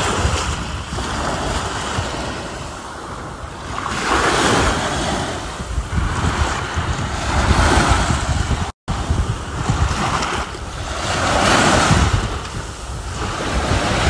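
Small waves breaking and washing up a sandy shore close by, each surge swelling and fading every three to four seconds, with wind buffeting the microphone.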